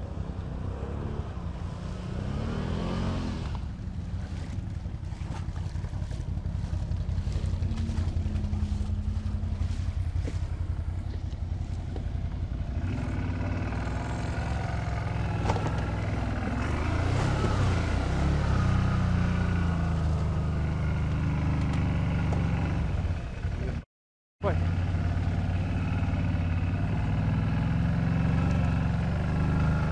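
ATV engine running under changing throttle, its pitch rising and falling several times. The sound cuts out completely for about half a second roughly three-quarters of the way through, then comes back.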